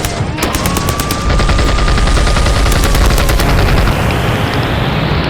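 Rapid machine-gun fire sound effect, with a deep rumble that swells about a second in and eases off near the end, and a steady whistling tone held through the middle.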